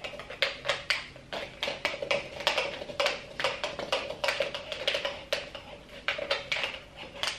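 Metal bombilla scraping and tapping inside a dried mate gourd, quick irregular scrapes and clicks several a second, loosening leftover gourd flesh softened by a hot-water soak, the first step in preparing a new gourd.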